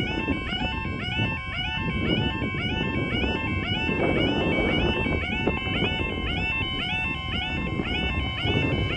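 Automatic half barrier level crossing alarms sounding with the barriers down, a rising tone repeated rapidly and evenly over and over. Two alarms sound together, slightly out of step, warning of an approaching train.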